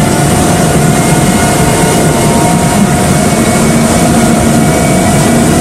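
Hydraulic machinery running steadily: a loud, even drone with a constant whine over it, from the hydraulic power system that drives a Framo portable cargo pump.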